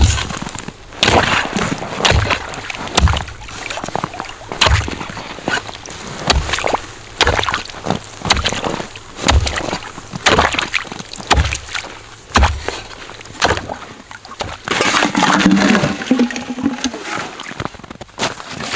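Steel ice chisel on a wooden handle chopping down into a water-filled hole in lake ice, about one blow a second, each blow a thud with a splash and slosh of water. Near the end there is a longer slushy crunching at the hole's edge, as a boot stamps the broken ice.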